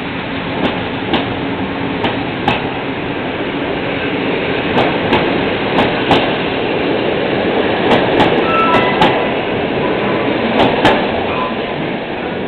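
Express passenger train pulling out of a station: steady rolling rumble with sharp, irregular wheel clicks over rail joints and points, and a brief thin squeal about eight seconds in.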